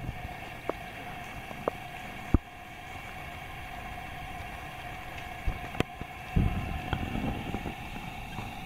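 Steady hum of a microbubble bath generator's pump running in the bathwater, with a few sharp clicks and a cluster of soft low thumps about six to seven seconds in as the cat is rubbed in the water.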